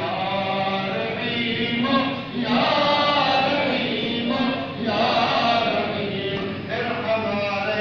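Men's voices chanting a dua together, unaccompanied, in phrases about two seconds long with short breaks for breath.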